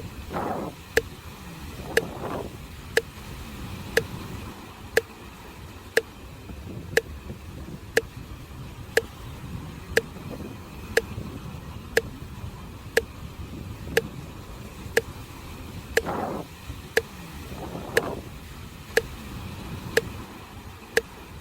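A metronome ticking steadily once a second to pace the breathing, over the continuous low rush of sea waves on the shore. Twice, a pair of short rushing swells rises above the background.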